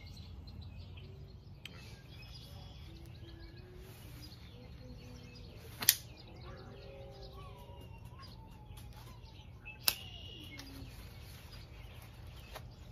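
Two sharp clicks about four seconds apart as a Cold Steel Rajah 3 folding knife is handled and clipped into a trouser pocket, over faint birdsong and a low steady hum.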